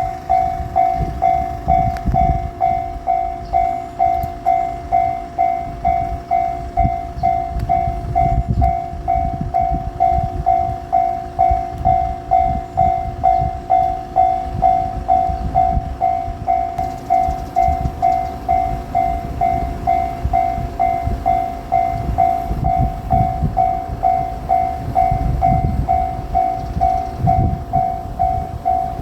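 Japanese level-crossing warning bell ringing steadily at about two strokes a second. Beneath it runs the low, uneven rumble of a train passing, hauled by an EF210 DC electric locomotive.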